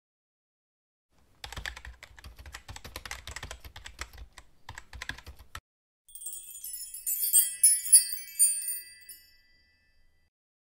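Keyboard-typing sound effect, a fast run of clicks lasting about four seconds, then a high twinkling chime jingle that fades out after about three seconds.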